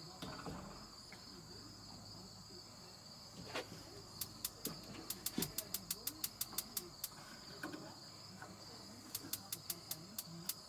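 Gas barbecue igniter clicking in two quick runs of sharp sparks, about five clicks a second, while the burner fails to light, a sign that no gas is reaching it. Crickets chirr steadily in the background.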